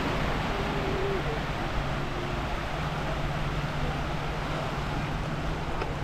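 Steady seaside ambience: a continuous wash of surf and wind noise under a low, even engine hum, with faint distant voices.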